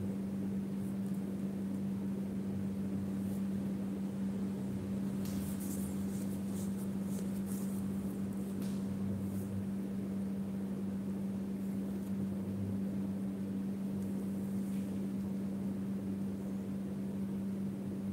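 Steady hum holding one constant low tone, with a few faint high ticks about five to nine seconds in.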